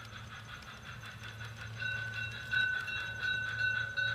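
LGB #2017 G-scale model steam locomotive running along garden track with a steady low hum, then about two seconds in a whistle sounding in a run of short blasts.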